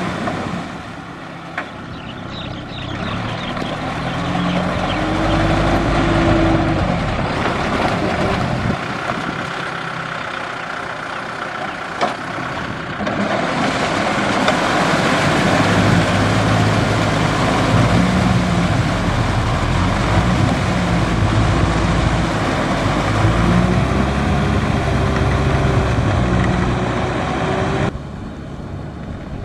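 Kubota M6040 tractor's diesel engine running under load, its note rising and falling, while the rear rotary tiller churns wet paddy mud. The sound drops off sharply near the end.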